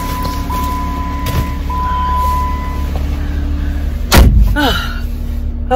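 Car engine idling just after a cold start, which sounds rough after the car has sat unused for days in frost, with a steady high warning tone that stops about three seconds in. About four seconds in, the car door slams shut with one loud thud.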